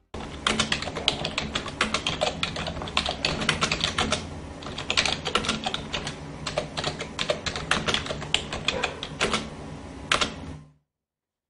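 Typing sound effect: rapid, irregular key clicks over a low steady hum, cutting off suddenly near the end.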